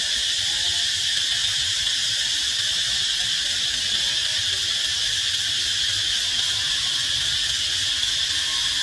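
Steady chorus of insects, a continuous shrill high-pitched drone with no breaks.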